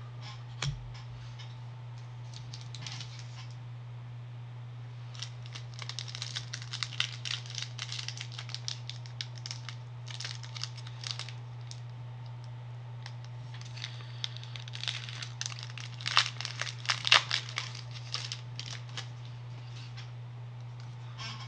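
Crinkling and crackling of a foil Pokémon booster pack wrapper being handled and torn open, in two spells of rapid crackles with the loudest a little past halfway. A steady low electrical hum runs underneath.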